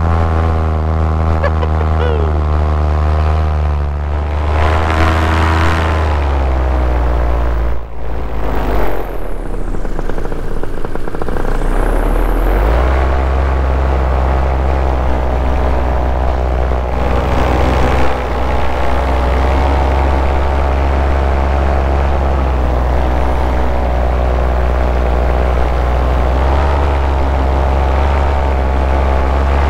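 Powered paraglider (paramotor) engine and propeller running in low flight. The engine's pitch rises about five seconds in, falls away near eight seconds to leave mostly rushing wind, and throttles back up a little after twelve seconds before running steadily on.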